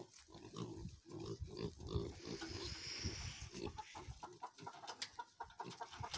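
Pigs and piglets grunting, many short grunts one after another.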